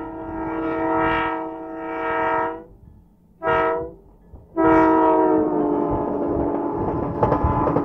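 Canadian National locomotive 9160's multi-chime air horn sounding the end of a grade-crossing signal: the tail of a long blast, a short blast about three and a half seconds in, then a final long blast from just before five seconds. The last blast drops a little in pitch and fades into the rumble of the passing train, with a few sharp knocks near the end.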